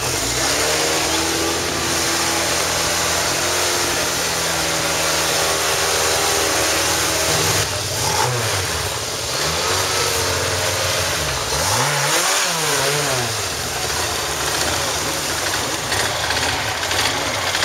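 BAC Mono's four-cylinder engine idling steadily, then revved up and down a few times as the car moves off slowly.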